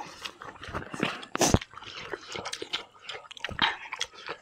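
Close-miked mouth sounds of people eating rice and chicken with their hands: chewing and lip smacks among many small clicks. A single sharp knock about a second and a half in is the loudest sound.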